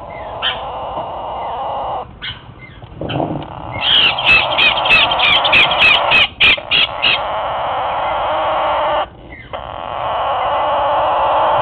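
Parrot chicks calling: a steady, noisy chorus throughout, broken by a run of about ten short, loud squawks repeating quickly between roughly four and seven seconds in.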